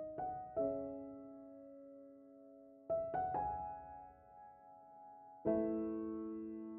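Background music: slow, soft solo piano, a few notes and chords struck and left to ring out, with new chords about three and five and a half seconds in.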